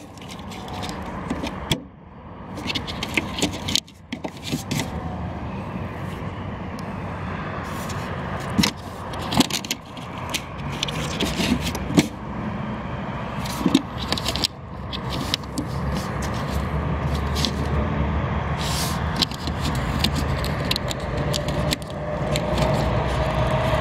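Hands working a corrugated plastic wiring-harness conduit into place, with repeated clicks and rustles of plastic. Underneath is a steady low vehicle rumble that grows louder in the second half.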